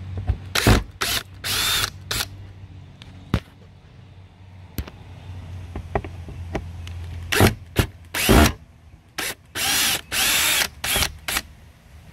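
Electric drill-driver backing screws out of an RV outdoor shower box frame in short bursts of the motor spinning up and stopping: several in the first two seconds, a pause, then another run of bursts. The screws are coming out cleanly rather than spinning in rotted wood.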